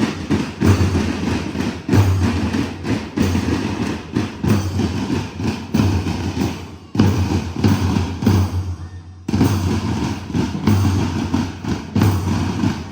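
School marching band drums beating a steady march rhythm, the deep bass drum strokes loudest, with a couple of brief lulls.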